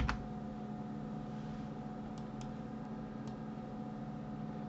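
Computer mouse clicks: one sharp click at the start and a few faint ones a couple of seconds later, over a steady low hum.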